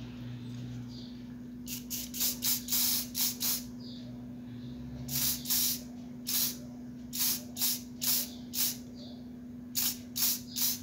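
Aerosol spray can sprayed in a dozen or more short hissing bursts: a quick-fire run about two seconds in, then single puffs spaced about half a second apart. A steady low hum runs underneath.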